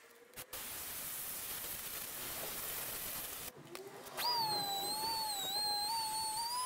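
Compressed-air sander: a steady hiss of air for about three seconds, then, after a brief break, a high steady whine as the sander spins up, its pitch dipping slightly as it is pressed to the truck's wing.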